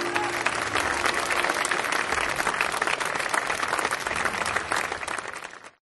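Audience applauding as the band's final chord dies away, the clapping fading out near the end.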